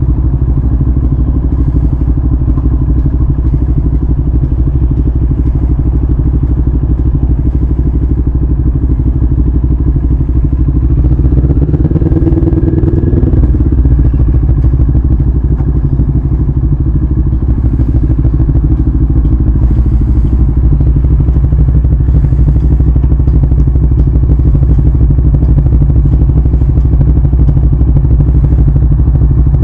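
CFMoto 400NK's parallel-twin engine idling steadily, with a short rise and fall in engine note around twelve seconds in as the bike creeps forward.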